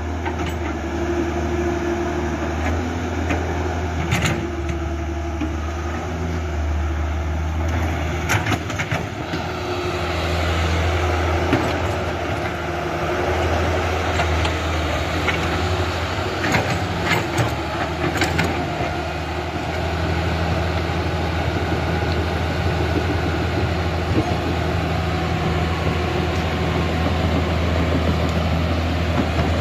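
Remote-control long-arm excavator working: its motor runs with a steady low hum, with a few sharp clicks and knocks about 4 seconds in, around 8 to 9 seconds and again around 16 to 18 seconds.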